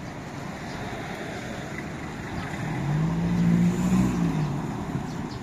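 A motor vehicle drives past on a street: its engine note swells and then falls away over about two seconds in the middle, over steady traffic noise.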